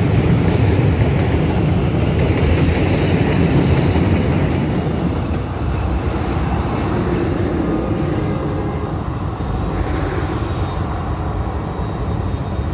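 Freight train's covered wagons rolling past on the rails, a steady rumble of wheels that grows gradually quieter as the last wagons move away.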